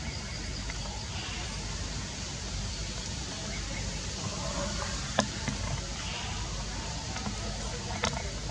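Steady background noise with a low rumble and faint, indistinct voices. Two sharp clicks stand out, about three seconds apart in the second half.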